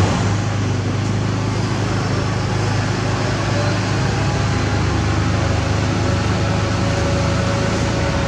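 A heavy diesel engine running steadily with a low, even hum. A faint high whine joins it about halfway through.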